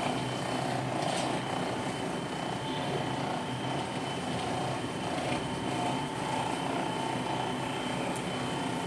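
A steady mechanical hum with a thin, constant high whine over it.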